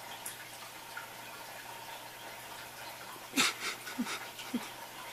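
Faint steady room hiss. About three and a half seconds in come three short breathy puffs, roughly half a second apart, the first with a sharp rush of air.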